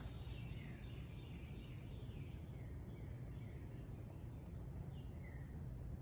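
Birds chirping, a scatter of short falling calls, over a steady low rumble.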